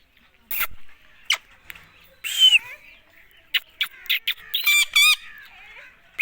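Indian ringneck parrot calling in a string of short, sharp squawks and chirps, with a longer arched call about two seconds in and a quick run of calls near the end.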